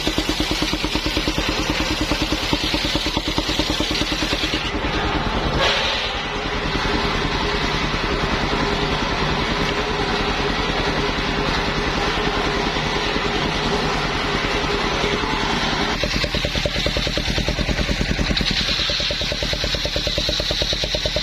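Engine-driven circular saw running with a steady rapid engine pulse. Its tone shifts about five seconds in and again around sixteen seconds in, as the load changes.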